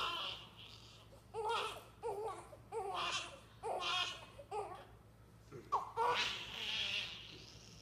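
Eight-day-old baby boy crying in short, repeated high wails while being circumcised. A longer, louder cry comes about six seconds in.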